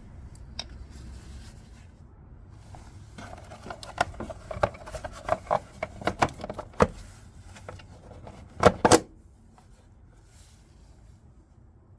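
Hand tools and parts clicking and knocking in the engine bay during a car battery replacement: a run of irregular sharp clicks, some with a brief metallic ring, ending in two loud knocks.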